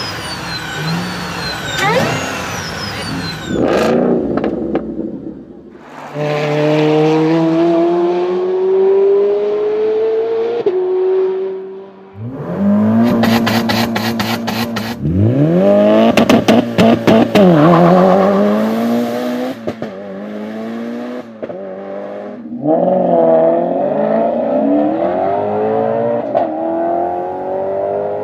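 High-revving supercar engines accelerating, rising in pitch through several gear changes, in a run of separate passes. In the middle there is a rapid series of sharp cracks.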